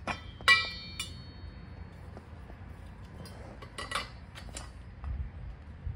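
Metal rail sections of a chain-drive garage door opener clanking against each other as they are handled and slid together. One sharp, ringing clank comes about half a second in, with a few lighter knocks and clicks later and a louder click at the very end.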